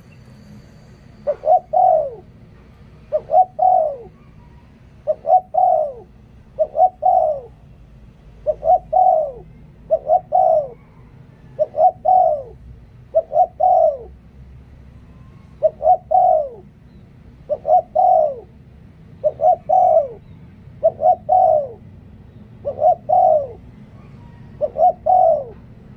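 Spotted dove cooing steadily, a decoy bird calling in the Thai 'liu tan' style: a phrase of two or three coos about every two seconds, each phrase ending in a falling note.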